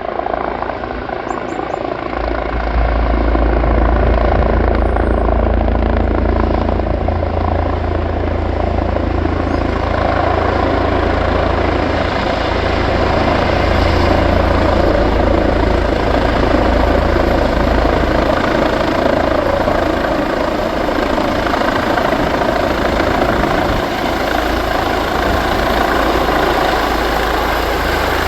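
Air rescue helicopter running close by, with a steady rotor beat and turbine noise. It grows louder about two seconds in, and a thin high turbine whine joins about ten seconds in.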